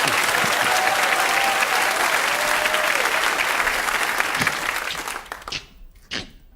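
Studio audience applauding, dying away about five seconds in, followed by a few short sharp clicks near the end.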